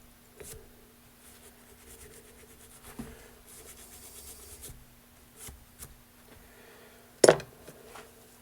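Faint scraping and rubbing as dirt is cleaned out of a garden tractor's mower-deck spindle by hand, with a few light clicks and one sharp metallic knock about seven seconds in.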